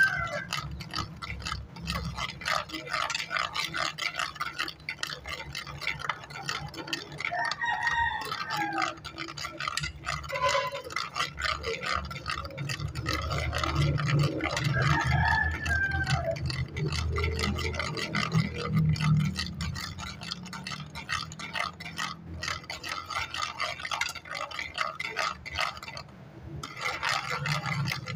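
A spoon stirring tomato sauce in a metal cooking pot, scraping and clinking against the pot in a quick, irregular run of small ticks.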